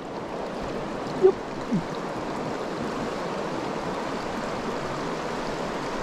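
Mountain stream running over rocks, a steady rush of water. Just over a second in there is a short, loud, pitched blip, with a fainter one about half a second later.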